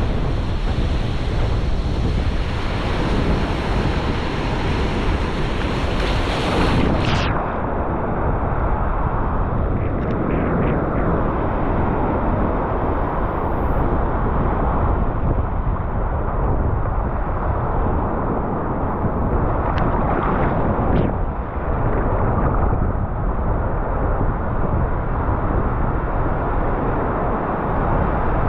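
Loud surf breaking and wind buffeting an action camera's microphone in a steady rush of noise. About seven seconds in the hiss drops away and the rush turns duller.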